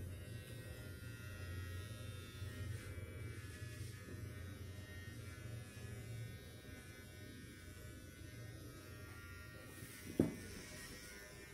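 Electric hair trimmer running with a steady buzz as it cuts a baby's hair. A single sharp knock sounds near the end.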